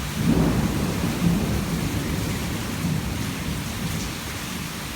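Heavy rain pouring down with a low rumble of thunder that swells about half a second in and slowly dies away.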